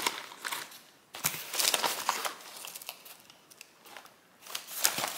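Black plastic binding combs clicking and rustling against each other and the cardboard box as they are handled and pulled out. The handling comes in irregular bursts: busiest about a second in, with a quieter stretch before more near the end.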